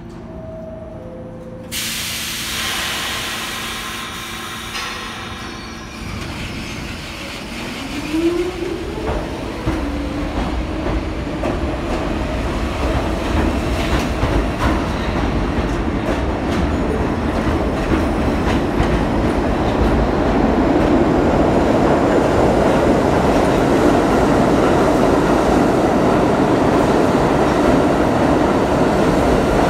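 New York City Subway A train of R46 cars leaving the station. Its two-note door-closing chime sounds, then air hisses out as the brakes release. The train moves off with a rising motor whine, and the wheel clatter grows steadily louder as the cars run past.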